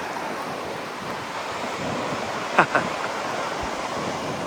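Steady rushing roar of Takakkaw Falls, a very tall waterfall, with wind buffeting the microphone. A brief, sharp sound cuts through about two and a half seconds in.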